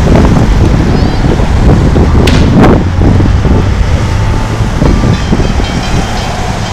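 Street traffic with wind rumbling on the microphone, a car passing close by at the start, and a couple of short clicks about two and a half seconds in.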